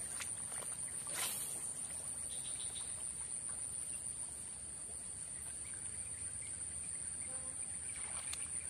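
Steady, high-pitched drone of insects, one unbroken tone with no let-up, over a faint background hiss.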